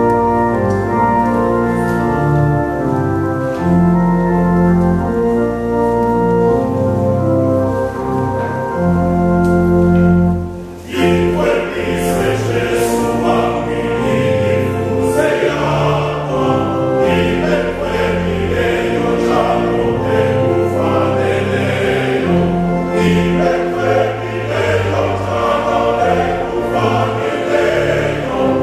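Church organ playing slow, held chords; after a short break about eleven seconds in, a choir comes in singing a hymn over the organ.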